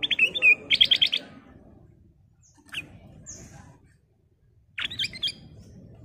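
Ruby-throated bulbul (kutilang emas) singing: a quick run of clear chirps in the first second, a single sharp note nearly three seconds in, and another short phrase near the end.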